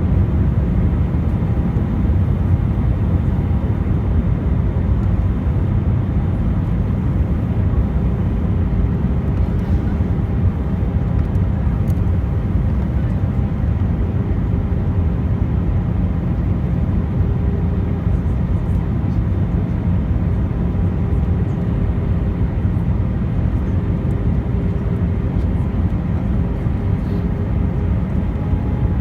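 Airbus A320 on its landing approach: a steady low rumble of engine and airflow noise, with a faint steady hum that comes and goes.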